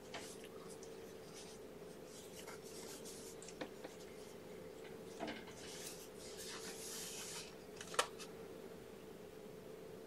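Faint rustling and rubbing of a blanket handled by hand on bedding, with a few small clicks, the sharpest near the end, over a steady faint hum.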